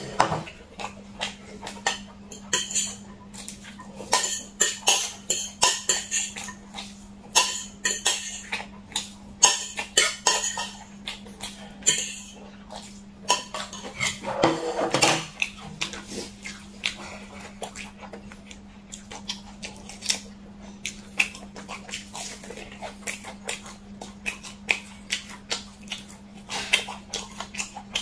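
Close-miked eating sounds of spicy noodles: wet chewing and mouth smacks, with a metal fork scraping and tapping a ceramic plate. About halfway through there is a longer, louder slurp as the plate is tipped up to the mouth. A steady low hum runs underneath.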